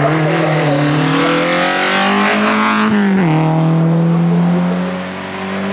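Race car engine accelerating hard up a hill-climb course out of a hairpin, rising in pitch. About three seconds in the pitch drops sharply at a gear change, then the engine pulls on and fades a little near the end.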